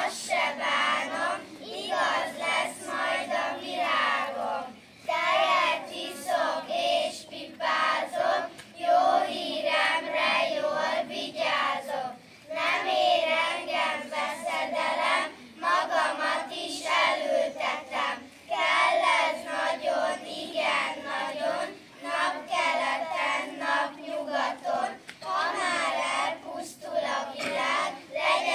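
A group of children singing a song together, in short phrases with brief breaks between them.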